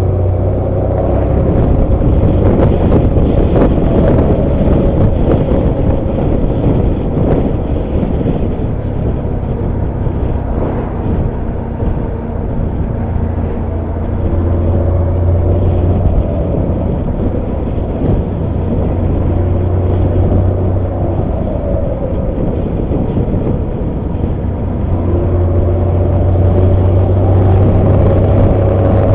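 ALS intercity bus no. 333's diesel engine and exhaust running, a deep steady drone whose pitch rises and falls with engine speed. It eases off for a stretch in the middle and swells again near the end.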